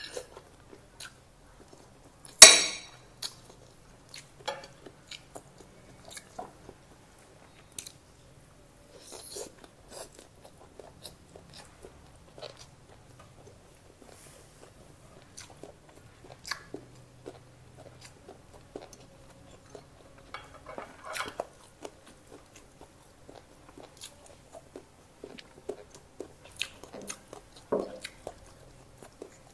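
Close-miked chewing and crunching of fried rice and omelette, with scattered small clinks of a spoon and fork against a ceramic plate. One loud sharp knock about two seconds in.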